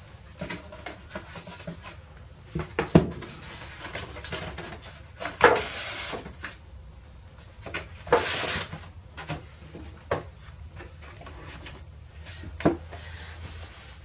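Handling noises from setting up a tablet on a wooden easel's ledge: scattered knocks and clicks, with longer rustles about five and eight seconds in.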